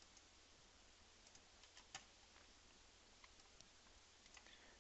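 Near silence with a scattering of faint clicks at a computer, the clearest about two seconds in.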